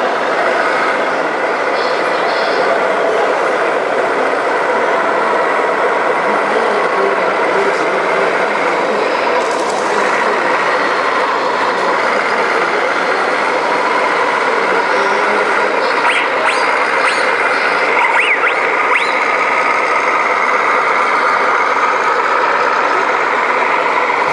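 Radio-controlled scale model trucks driving, their sound modules playing truck noises such as reversing beeps and air-brake hiss, over steady background chatter.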